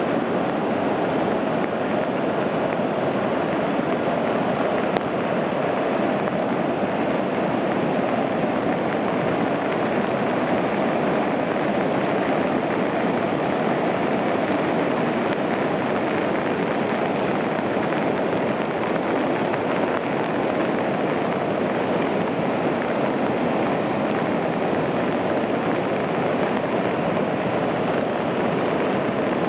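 Little Thompson River in flood, its floodwater rushing in a steady, unbroken roar.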